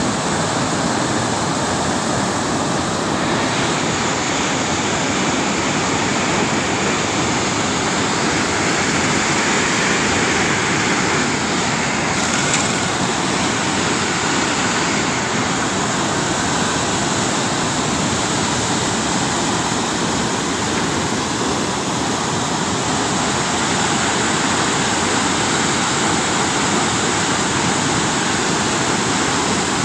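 River water pouring through barrage sluice gates and churning into white water below the concrete piers: a loud, steady rushing.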